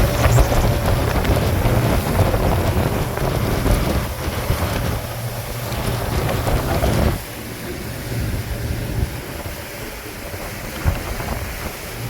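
Aluminium motorboat under way through choppy sea in strong wind: the boat's running noise mixed with heavy wind buffeting the microphone. The sound drops noticeably about seven seconds in.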